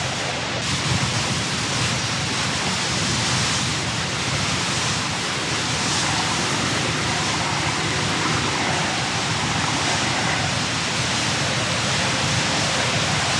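Steady rushing noise of wind and choppy river water.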